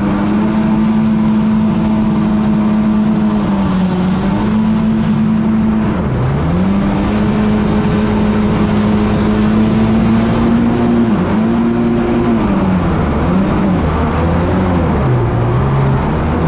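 A vehicle engine, likely an animation sound effect, running continuously with a steady hum. Its pitch holds, dips and rises again several times, as if revving up and down.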